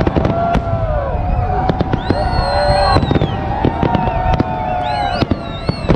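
Aerial fireworks display going off: a continuous low rumble of bursts, sharp bangs and crackles, with several drawn-out whistling tones lasting a second or two each.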